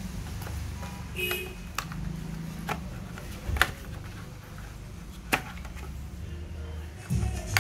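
Handling noises from unpacking a phone box: a few sharp clicks and taps as the plastic wall charger is worked out of its cardboard tray and lifted free, over a steady low background hum.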